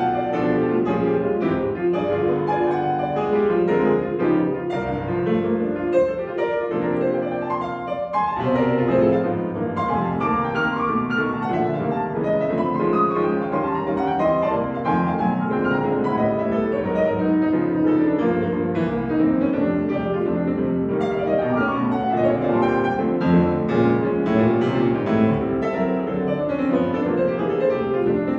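Steinway & Sons grand piano played solo: a continuous classical piece with many quick notes and no pauses.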